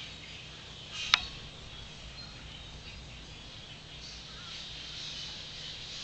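A large flock of blackbirds calling together, a dense, steady wash of high chattering chirps heard through a window. A single sharp click with a short ring about a second in.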